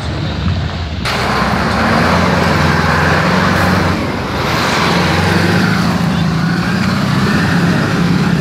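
Motor vehicle engines running close by. The sound swells sharply about a second in, dips briefly around four seconds in, then builds again.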